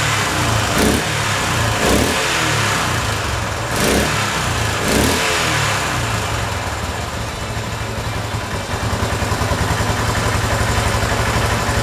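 1975 Honda XL250's single-cylinder four-stroke engine running just after start-up, with its cam chain tensioner freshly adjusted. It is revved briefly a few times in the first five seconds or so, then settles into a steady idle.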